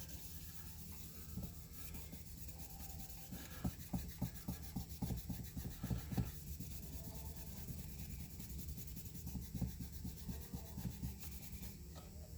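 Cloth rag rubbing back and forth on the painted side of an American Flyer #779 oil drum loader's house, in short irregular strokes, scrubbing off grime with a little CRC 2-26 on the rag.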